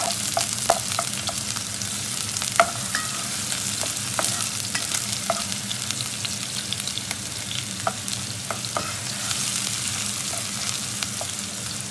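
Diced onion and garlic sizzling in hot oil in a nonstick pot, stirred with a spatula that now and then clicks and scrapes against the pan.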